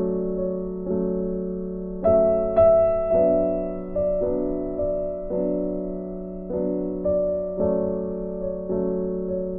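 Background music: a slow, gentle piano tune with a new chord struck about every second, each dying away.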